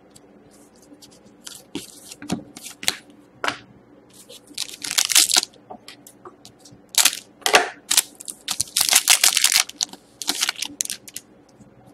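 Foil wrapper of a hockey-card pack crinkling and being torn open by hand: a string of irregular crackling rustles, heaviest around the middle and about two-thirds of the way in.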